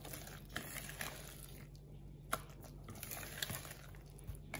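Wire whisk stirring thick chocolate cake batter with sour cherries in a bowl: soft wet squelching and scraping, with a few sharp ticks of the whisk against the bowl, the loudest about halfway through.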